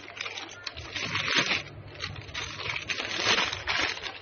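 Plastic snack packet crinkling and rustling in irregular bursts as it is handled and pulled open by hand.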